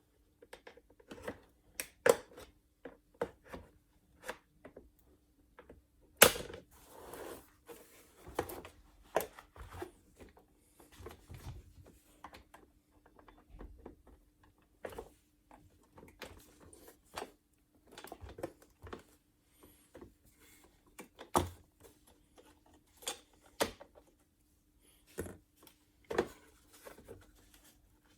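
Irregular clicks and knocks of hands handling plastic parts and tools, as in taking apart a vacuum cleaner on a bench. The two sharpest knocks come about 6 s and 21 s in, over a faint steady hum.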